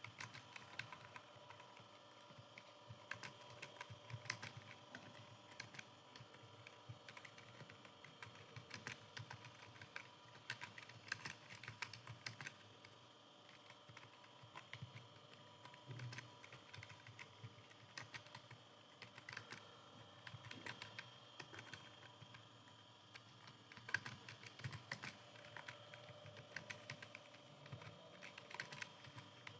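Computer keyboard keys clicking under continuous typing: quick, irregular keystrokes with a few short pauses.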